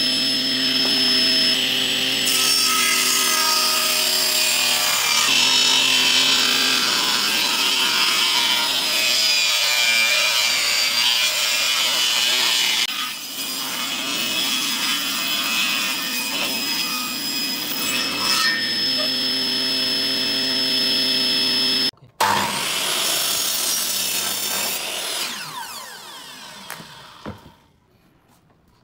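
Table saw ripping pine blocks: a steady motor hum under the rasp of the blade cutting through the wood, with a dip about halfway through. About three-quarters of the way in there is a sudden break, then a power saw blade winding down, falling in pitch and fading almost to silence.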